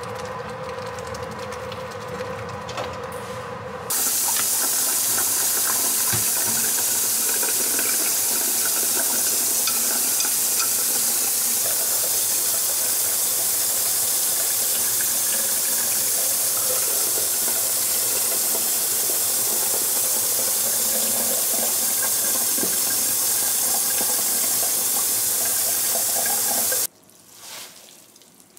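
A pot of glass noodles boiling on a gas burner for the first few seconds, then a kitchen tap running hard into a steel bowl as the cooked noodles are rinsed under cold water. The running water starts suddenly about four seconds in and cuts off abruptly near the end.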